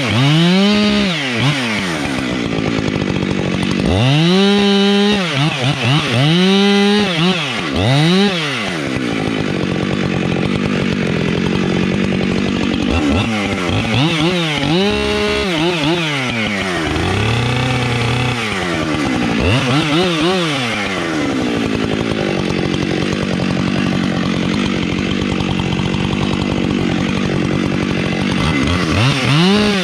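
Husqvarna 592XPG two-stroke chainsaw cutting pine, its engine revving up and down again and again, with stretches of steadier running between the revs.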